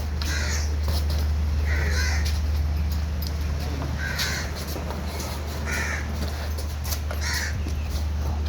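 A bird calling about five times, one short call every second and a half or so, over a steady low hum.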